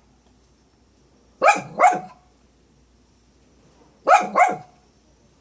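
A dog barking: two quick double barks, about two and a half seconds apart.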